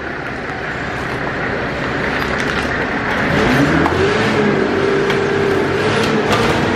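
Forklift engine running under load, revving up about three and a half seconds in and holding a steady higher pitch as the forks lift a car's engine out on a chain.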